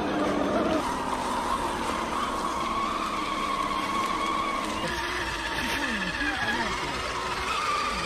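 Electric motors and geartrains of scale RC rock crawlers running, a steady whine that drifts slowly up and down in pitch with the throttle.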